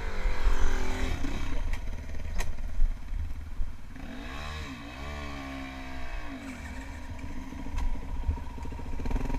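2007 Yamaha WR450F's single-cylinder four-stroke engine running at low speed and revved up and back down twice, briefly in the first second and a half and again for about two seconds from around four seconds in.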